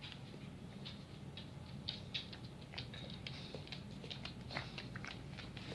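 Puppies' paws and claws pattering and scrabbling on the floor as they play: a quick, irregular run of small clicks and taps.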